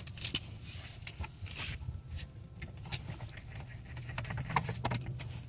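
Faint scattered clicks and rustling as a gloved hand seats the plastic drive housing of a variable-speed pool pump onto the motor, over a low steady hum.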